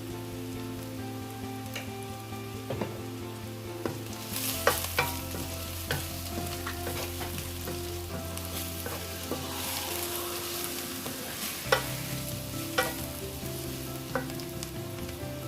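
Onion, garlic and ground spices sizzling in olive oil in a pan while being stirred, with the spatula knocking against the pan now and then. The sizzle swells about four seconds in.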